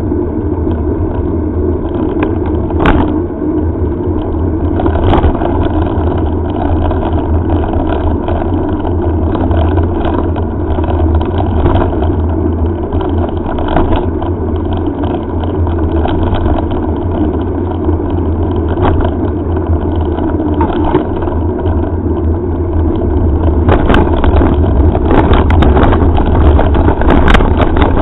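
Wind buffeting a helmet camera's microphone, with the steady rumble of mountain bike tyres rolling on asphalt. Near the end the level rises and knocks and rattles become frequent as the bike moves onto a rough dirt track.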